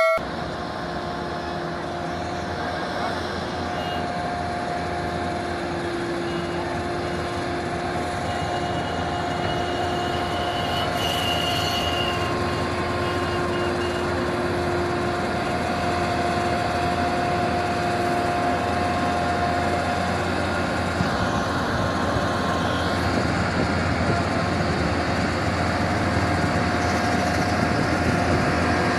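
A convoy of heavy lorries' diesel engines running together under load in a steady, continuous din that grows slightly louder. A drawn-out pitched note runs through it and breaks off every few seconds, with a crowd's voices mixed in.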